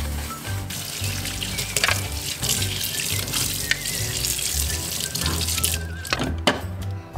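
Tap water running into a stainless steel kitchen sink, splashing over a plastic water-purifier drip tray being rinsed under it.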